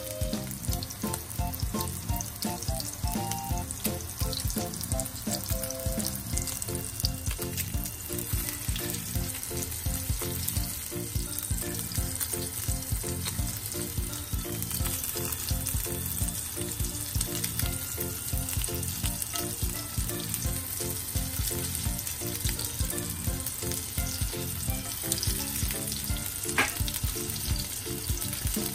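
Chicken and SPAM mini burger patties frying in hot oil in a nonstick pan: a steady sizzle full of fine crackles. A spoon and spatula turn the patties, with a single sharp tap near the end.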